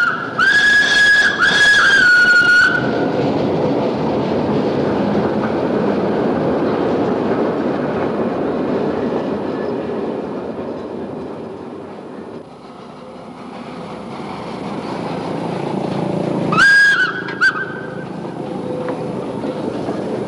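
B12-class steam tram locomotive (B1242) sounding its steam whistle in a few short blasts, then running along the street track with steady rolling and engine noise that fades and swells again; a second short whistle blast comes about 17 seconds in.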